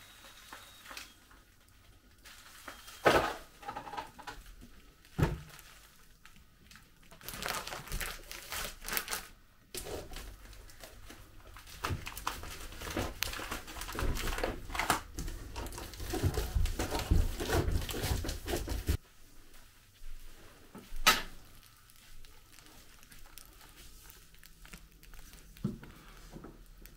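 Plastic vacuum-bag film crinkling and rustling as hands press it down over a composite layup, with a few sharp knocks before it and one click after it.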